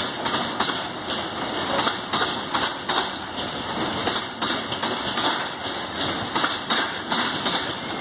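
Container freight train's wagons rolling past at close range: a steady rumble and rush of steel wheels on the rails, with repeated sharp wheel clacks coming a few times a second.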